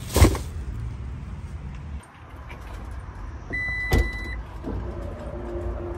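A plastic shopping bag dropped into a car trunk with a knock. Then, about three and a half seconds in, a short electronic beep with a second knock as the power tailgate is worked, over a low parking-lot rumble.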